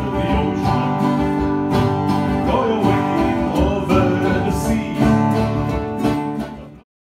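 Acoustic folk music from a banjo and an acoustic guitar playing together with a steady beat, cutting off suddenly near the end.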